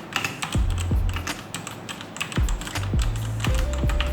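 Typing on a Fantech Maxfit 61 mechanical keyboard with Otemu Red linear, non-clicky switches and ABS keycaps: a fast, uneven run of keystroke clacks.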